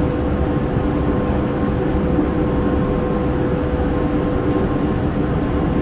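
Tobu 30000 series electric train with Hitachi IGBT-VVVF control, heard from inside the passenger car while running: a steady rumble of wheels and car body with a steady whine on top, not changing in pitch.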